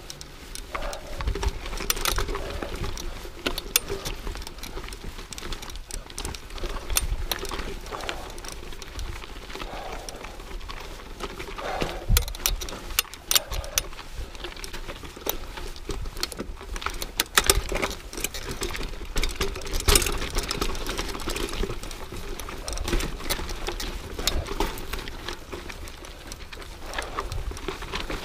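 Mountain bike riding over rough dirt singletrack: tyres rolling on dirt and stones, with the bike rattling and clattering over bumps in many sharp, irregular knocks.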